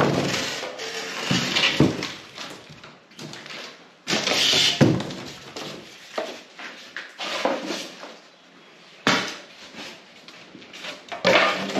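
A cardboard box being cut down and pulled away from a tool cabinet: irregular rustling and scraping of cardboard with a few sudden knocks, the sharpest about nine seconds in.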